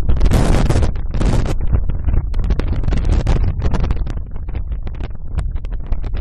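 Storm wind buffeting the microphone on the deck of an oil tanker in heavy seas, with a heavy low rumble of wind and breaking waves. Two louder hissing gusts come in the first second and a half.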